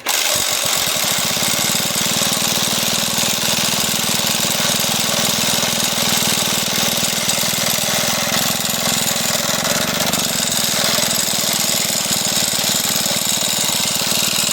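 Old Homelite chainsaw engine being turned over without fuel, a rapid, steady pulsing that stops just before the end. A sound from the spark plug keeps it from reaching full speed.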